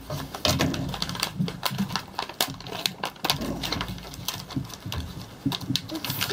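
Stiff clear plastic blister packaging being snipped with small clippers and then pried and pulled apart by hand, giving an irregular run of sharp clicks, snaps and crackles.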